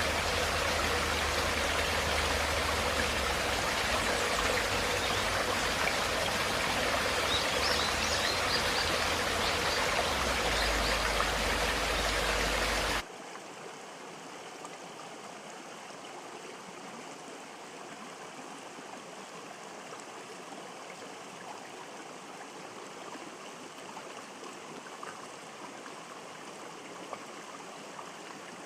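River water flowing steadily, a continuous rush of water. About halfway through it cuts off suddenly to a much quieter, softer flow.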